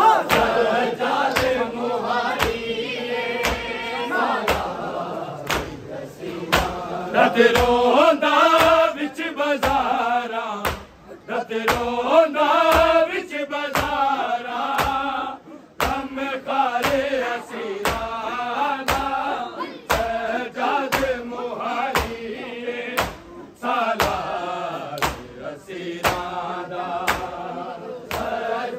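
Men's voices chanting a noha, the Shia mourning lament, in unison, over sharp, evenly spaced strikes about every three quarters of a second, typical of matam chest-beating.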